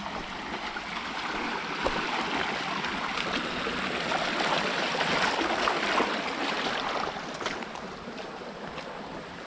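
Shallow creek water rushing over rocks, with splashes of feet wading through it; the water noise eases off in the last couple of seconds.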